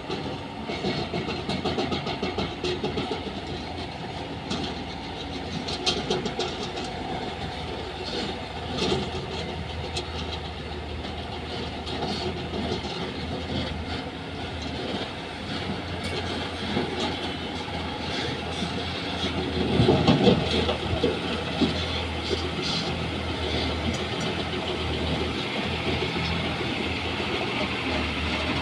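Heavy construction machinery running at work, a steady engine din with repeated metal clanks and rattles, swelling louder for a moment about twenty seconds in.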